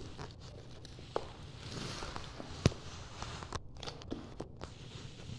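Footsteps and handling noise: scattered light taps and rustles over a faint low hum, with one sharp click about two and a half seconds in.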